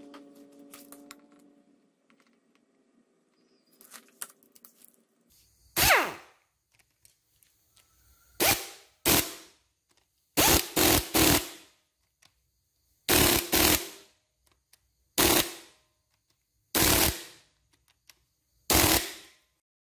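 Handheld impact driver run in about a dozen short bursts, singly and in quick twos and threes, tightening the bolts of a Honda motorcycle engine's cylinder head cover. The first burst comes about six seconds in, after a quiet stretch.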